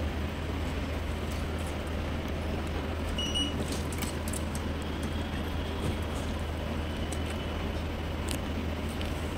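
Steady low hum and hiss of background machine noise, with a few faint light clicks and a brief faint high tone about three seconds in.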